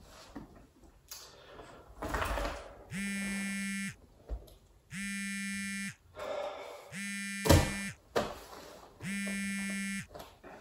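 Mobile phone buzzing with an incoming call: an even, one-second buzz repeating every two seconds, four times. A sharp knock sounds just after the third buzz.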